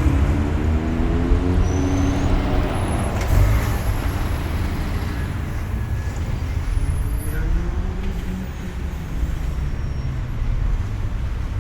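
Road traffic: a vehicle that has just passed fades away, its engine tone falling in pitch over the first two seconds, over a steady low rumble of traffic. Another vehicle's engine rises and falls in pitch about seven seconds in.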